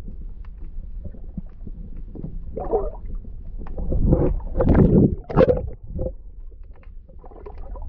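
Muffled water gurgling and rumbling as picked up by a submerged camera, swelling to a louder churning burst in the middle.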